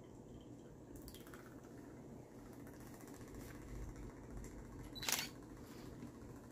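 Faint handling sounds as olive oil is poured from a plastic dispenser bottle into a measuring cup, with one sharp click about five seconds in.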